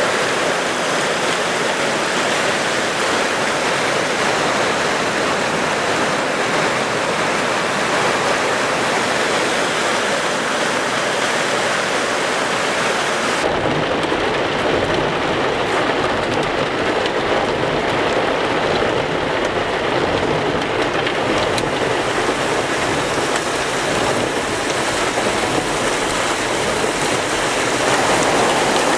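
Steady, loud rush of water from heavy mountain rain and flash-flood runoff. About halfway through it changes abruptly, losing some of its hiss and gaining a low rumble.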